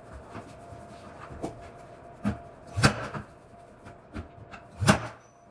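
A few sharp knocks on a hard surface, the two loudest about two seconds apart near the middle and near the end, over a faint steady hum.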